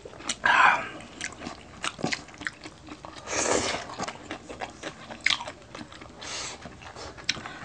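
Close-miked mukbang eating sounds: wet chewing and mouth clicks, with a few louder crunchy bites, about half a second in and again around three and a half seconds in.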